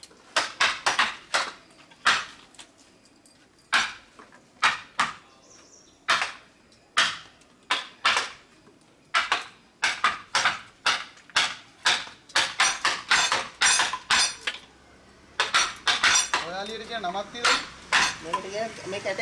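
Hammer blows on a wood-carving chisel cutting into a block of wood held in a vise: sharp knocks at an uneven pace, often in quick runs of two or three.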